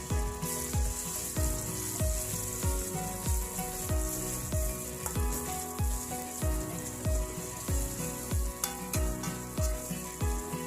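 Oil sizzling steadily in a pan as the spice paste is sautéed, with some stirring. Background music with a steady kick-drum beat plays over it, and the beat is the loudest part.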